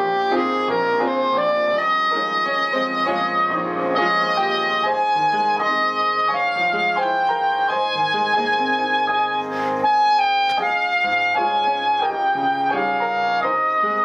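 Soprano saxophone playing a melody of held notes over piano accompaniment.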